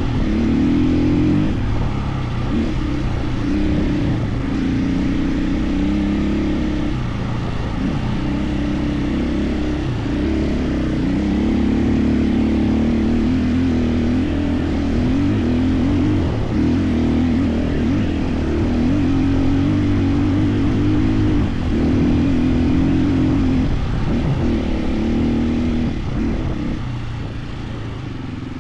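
KTM 450 EXC enduro motorcycle's single-cylinder four-stroke engine running under riding load, its pitch rising and dropping with throttle and gear changes, fading a little near the end.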